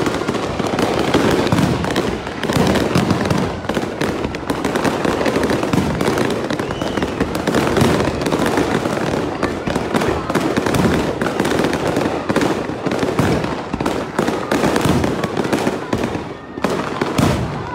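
Aerial fireworks bursting overhead in a rapid, continuous barrage of bangs, with a brief lull near the end.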